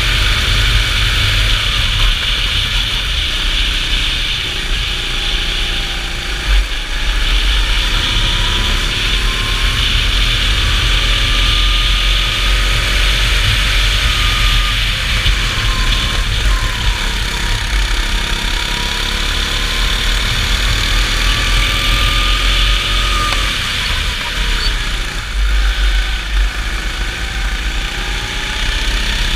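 Go-kart engine heard from the kart's own seat, its pitch rising and falling again and again as it accelerates and lifts through the corners, over a steady low rumble.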